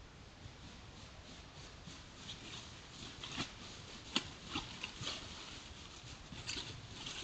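Coyotes' footsteps in dry fallen leaves: a few scattered crunches and rustles over a steady hiss from the trail camera's microphone.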